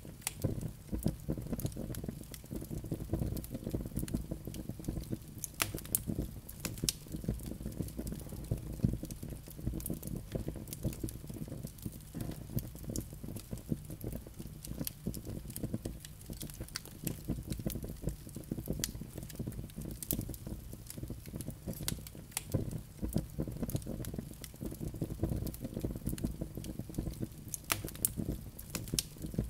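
Wood logs burning in a fireplace: frequent, irregular crackles and pops over a steady low rumble of flames.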